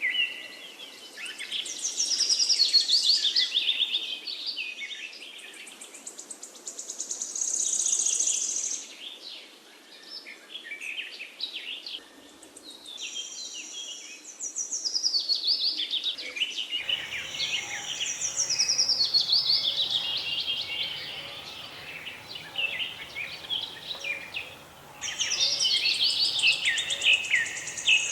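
Several songbirds singing at once in fast, repeated, chattering phrases that overlap and trade off. Just past halfway a faint low background rumble comes in beneath them.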